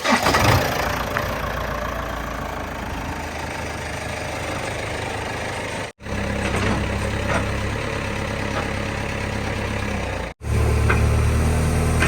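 Heavy diesel engines of earthmoving machinery running steadily. The sound breaks off abruptly twice, about 6 and 10 seconds in, each time switching to another engine, and the last engine is louder and deeper.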